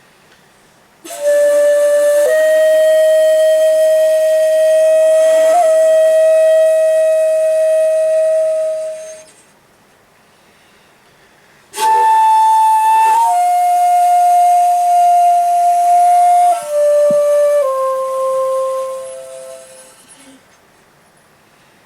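Komuso-style shakuhachi bamboo flute playing slow solo phrases with audible breath: a long held note that swells after a brief lower start, a pause, then a second phrase that steps down through several notes and fades out.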